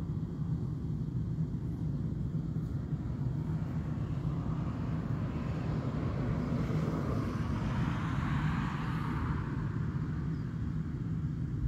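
A car passing on the nearby road, its tyre and road noise swelling over several seconds and fading near the end, over a steady low rumble.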